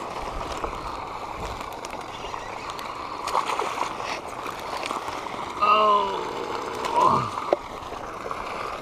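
Steady rushing spatter of a pond's spray fountain. A little past the middle comes a short pitched vocal sound, followed by a sound falling in pitch, with a few light clicks and rustles.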